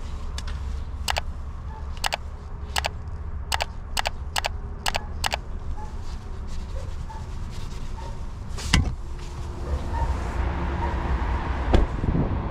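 About eight sharp clicks in the first five seconds, then two heavy thumps, one a little past the middle and one near the end, as a car door is opened and shut while getting out. From about ten seconds the open-air background hiss of traffic comes in.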